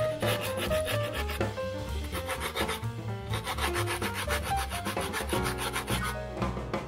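Abrasive rubbing strokes on wood, over background music with a steady beat.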